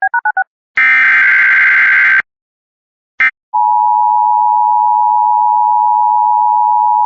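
Emergency Alert System tones: a quick run of alternating beeps, a harsh digital data burst lasting about a second and a half, and a short blip. Then, from about three and a half seconds in, the steady two-pitch EAS attention signal sounds, announcing the warning that follows.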